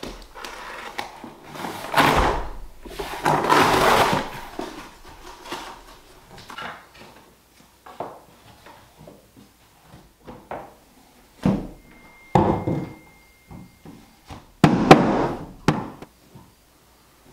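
Cardboard boxes and planks of click-together laminate flooring being handled and set down on the floor underlayment. There is scraping and rustling about two to four seconds in, then scattered knocks and several heavier thuds.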